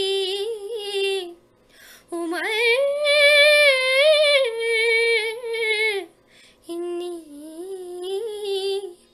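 A woman singing a Dogri song unaccompanied, in three phrases. The middle phrase swoops up about two seconds in to a long held note with a slight waver.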